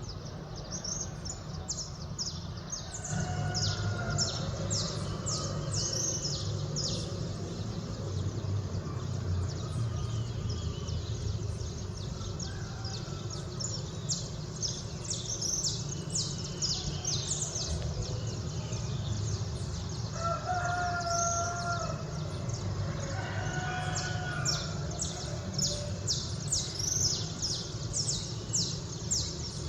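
Roosters crowing several times, the clearest crow about two-thirds of the way in, among dense rapid chirping of small songbirds at dawn. A low steady rumble runs underneath.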